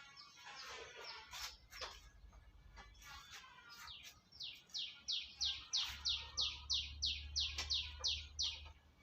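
Birds chirping and twittering. About halfway in, one bird starts a rapid series of about a dozen sharp, descending call notes, about three a second, that stops shortly before the end.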